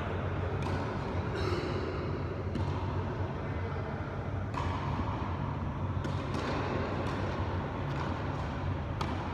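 Steady low hum of a large indoor sports hall, with a few scattered knocks of tennis balls being bounced and struck.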